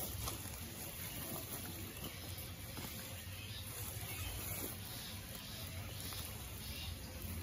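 Woven plastic feed sack rustling and crinkling as it is handled, gathered and twisted shut, over a steady low background hum.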